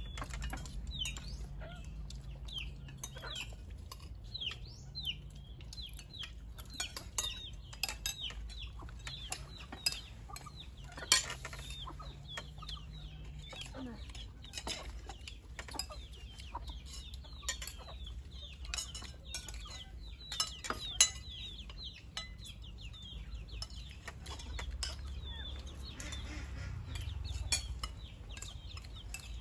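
Spoons and utensils clinking against bowls and dishes, with two sharper clinks about a third and two-thirds of the way through. Chickens cluck and peep throughout, in short falling chirps.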